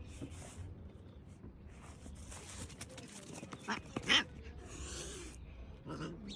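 A pet animal's short cries: two quick ones close together about four seconds in, the second the loudest, and a weaker one near the end, with some rustling noise between them.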